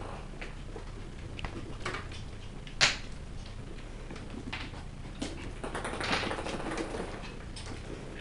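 West Highland White Terrier puppies' claws clicking and pattering on a hardwood floor as they scamper and scrabble, with one sharp, louder sound about three seconds in and a busier spell of scuffling a little past halfway.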